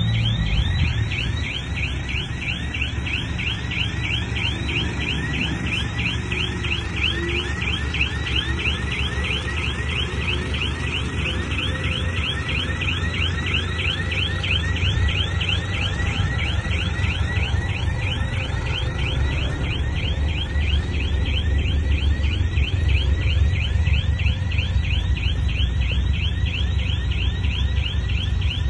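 Bulldozer running with a low engine rumble under a rhythmic high-pitched squeal that chirps about four times a second as it moves.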